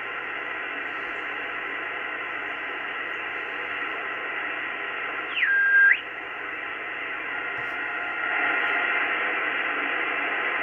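Icom IC-R8500 receiver's audio in single-sideband mode on the 2-metre satellite band: steady hiss of static with the highs cut off, growing a little stronger near the end. About five seconds in, a strong carrier tone slides down, holds briefly as a whistle, then slides back up.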